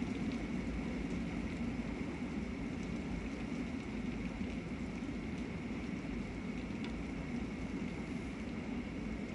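Heavy rain falling steadily on grass and tree foliage: a dense, even hiss with scattered faint drop ticks.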